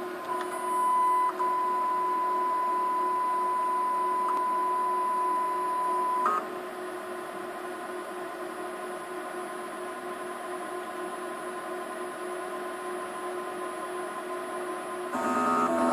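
An interior permanent magnet synchronous motor on a test bench whines with a steady high tone for about six seconds and then cuts off, as the drive feeds test signals into its windings during self-commissioning. A steady electrical hum runs underneath. Near the end a shorter, louder buzz made of several tones sets in.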